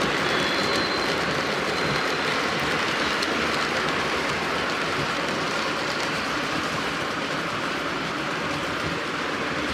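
Lionel O gauge model freight train rolling past on three-rail track: a steady rolling rumble and clatter of the cars' wheels that eases slightly toward the end.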